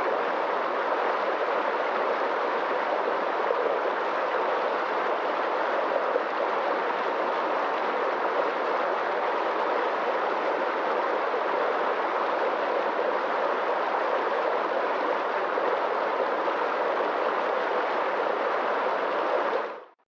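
Fast-flowing stream rushing and splashing over rocks, a steady, unbroken rush of water that fades out quickly at the very end.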